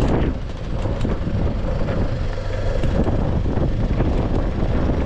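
Pickup truck driving over a rough, rocky dirt track, heard from inside the cabin. The engine and tyres make a steady rumble, and the body knocks and rattles over the bumps.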